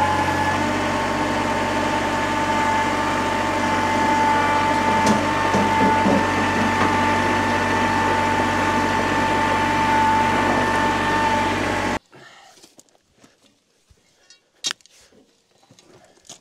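A motor running steadily with a constant whine and hum, which cuts off abruptly about twelve seconds in; a few faint knocks follow.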